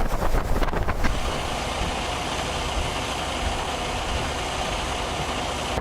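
A motor vehicle's engine running steadily under a constant rushing noise, with a few clicks in the first second.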